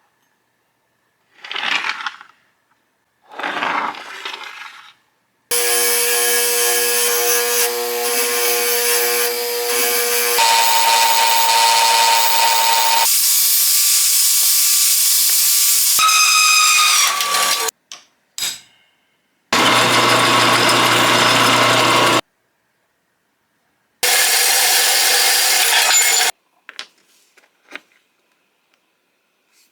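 Short clips cut together of scrap steel being worked: a couple of hand strokes, then power tools running on the metal, a steady multi-tone motor whine, stretches of dense grinding noise, and one tool whose pitch falls as it winds down.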